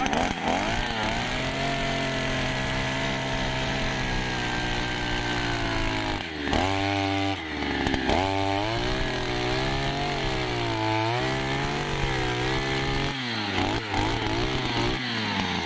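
Petrol earth auger's small two-stroke engine running hard while the auger bit drills into soil. The engine note sags and picks up again several times as the bit digs in under load.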